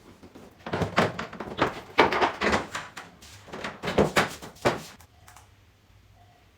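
A quick, irregular run of knocks and clatter, like hard objects being handled and set down, lasting about four seconds and then stopping.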